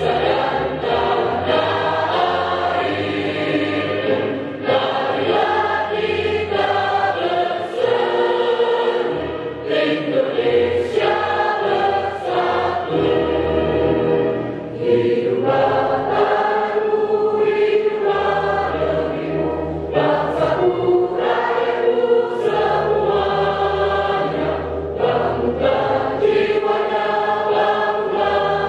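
Women's choir singing a song together, over low sustained bass notes that change every couple of seconds.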